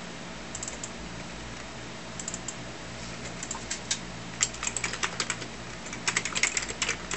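Keystrokes on the Amiga 2000's keyboard typing a shell command: a few scattered key presses at first, then a quick run of typing from a little past halfway, over a steady low hum.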